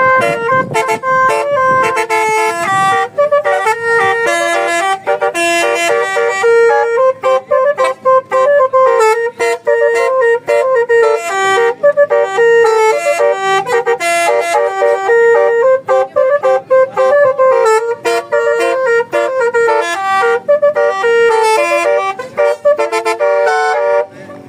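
Telolet multi-tone vehicle horn (Basuri type) playing a loud tune of quick stepped notes, with brief gaps between phrases; it stops just before the end.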